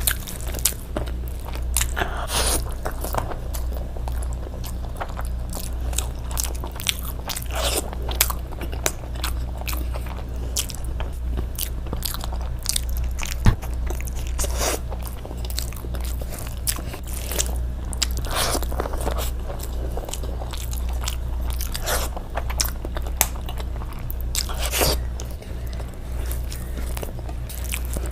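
Close-miked eating sounds: irregular biting, crunching and wet chewing of chicken and rice, with many small sharp clicks and smacks. A steady low hum runs underneath.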